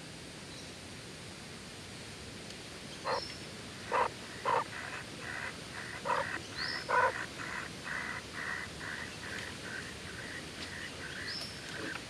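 Kingfisher nestlings begging in the nest burrow as the parent arrives with food. A few louder calls come between about three and seven seconds in, then a steady run of short repeated calls at about three a second.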